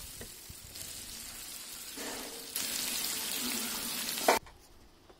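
Oil tempering of lentils, nuts, chillies and curry leaves, with lemon juice added, sizzling and bubbling in a non-stick kadai. The sizzle grows louder about two and a half seconds in, then cuts off suddenly near the end.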